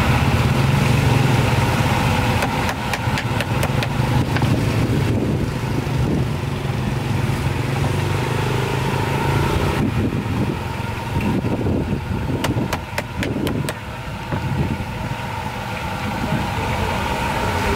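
Street noise with a motor engine running steadily, its low hum strongest in the first half. Two runs of sharp clicks come through, one a few seconds in and another around the middle.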